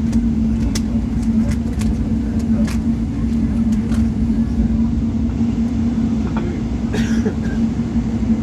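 Cabin noise of a Boeing 777-300 airliner taxiing after landing: a steady low rumble with a constant hum. Light clicks come now and then in the first few seconds.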